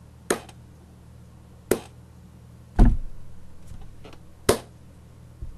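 A slow clap: one person's hands clapping one clap at a time, four claps spaced a second or more apart, close to the microphone, as mock applause. The third clap is the loudest and lands with a heavy low thump.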